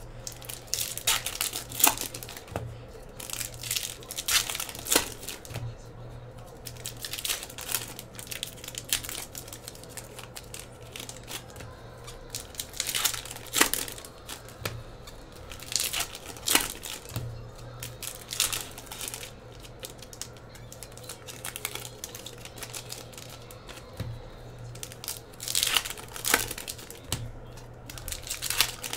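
Foil wrappers of Upper Deck hockey card packs crinkling and tearing as the packs are opened by hand, in irregular crackly bursts every second or two, over a steady low hum.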